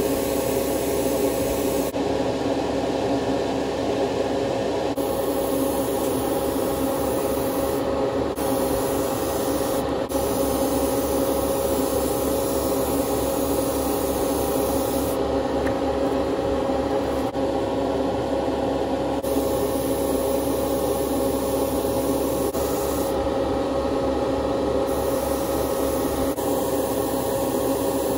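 Airbrush spraying gloss paint onto small plastic model car parts: a steady hiss over a constant motor hum, the hiss breaking off for a few seconds several times.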